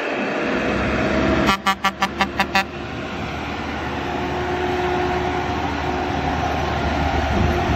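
Six quick blasts of a concrete mixer truck's air horn, then the truck's diesel engine running louder as it passes close by.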